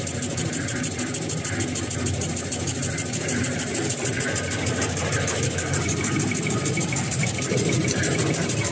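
Two-line facial tissue folding machine running: a steady mechanical drone with a fast, even rhythmic clatter.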